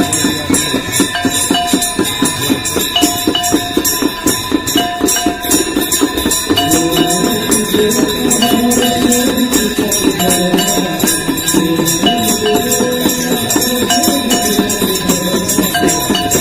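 Ganga Aarti ritual sound: hand bells and metal percussion ringing in a fast, even rhythm over steady ringing tones. A devotional melody comes in about six or seven seconds in.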